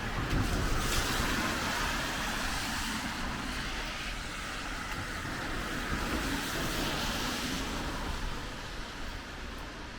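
Road traffic on a wet road: car tyres hissing as a vehicle passes, the sound fading away over the last couple of seconds.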